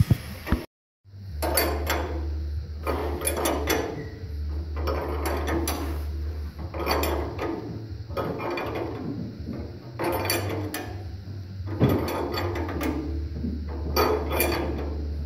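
A wrench working the nut on a threaded-rod bushing puller in repeated metallic strokes, roughly one every second to second and a half, as the bushing is drawn deeper into the chassis leg to centre it. A steady low hum runs underneath.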